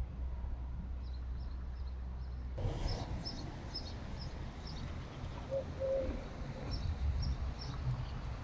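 Small birds chirping in short, repeated high notes, with a low cooing call about five and a half seconds in, over a steady low background rumble.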